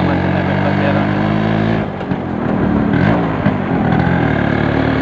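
Yamaha RX135's single-cylinder two-stroke engine running steadily, then easing off about two seconds in and picking back up in pitch before settling steady again near the end.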